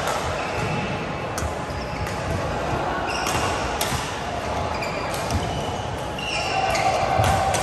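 Badminton rackets striking a shuttlecock in a rally, several sharp cracks a second or two apart, with sneaker squeaks on the court floor near the end, echoing in a large sports hall.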